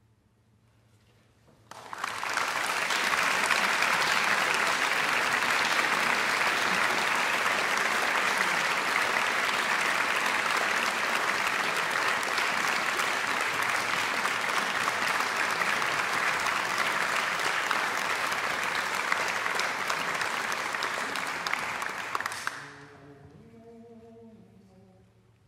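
Concert audience applauding, starting sharply about two seconds in, steady for about twenty seconds, then dying away, with faint voices after it near the end.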